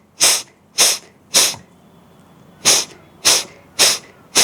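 Forceful, quick exhalations through the nose: sharp hissing snorts about two a second, in two runs with a pause of about a second between them. These are the drying breaths after jala neti, blowing leftover salt water out of the nose and sinuses.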